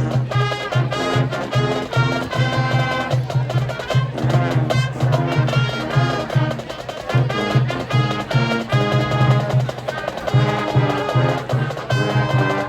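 High school marching band playing, with brass over drums and a low bass figure repeating in a steady beat.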